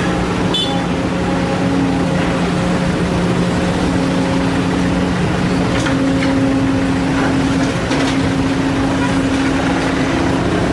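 Diesel engines of a hydraulic excavator and a dump truck running steadily under load as the excavator loads soil. There is a constant hum, a second, higher tone that cuts in and out several times, and a few faint knocks.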